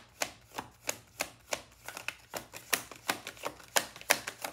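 A tarot deck being shuffled by hand, the cards tapping and snapping against each other in a quick run of sharp clicks, about four or five a second.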